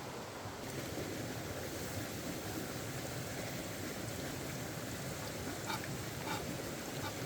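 Steady rushing of a flowing mountain stream, with a few light clicks near the end.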